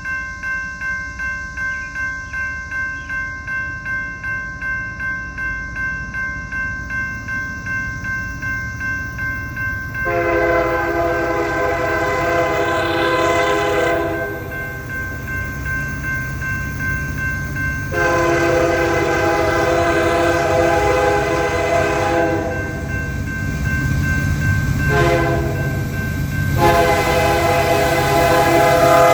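A grade-crossing bell rings steadily, then the lead Canadian National SD75I sounds its Nathan K3L air horn in the crossing signal: long, long, short, long. The low rumble of the approaching diesel locomotives grows beneath it.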